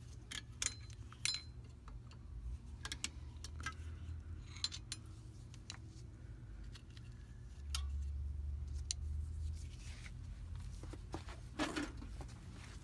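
Scattered metallic clicks and clinks of a wrench and brake hardware as bolts are undone on a car's rear drum parking-brake assembly. A steady low rumble runs underneath and grows louder for about two seconds past the middle.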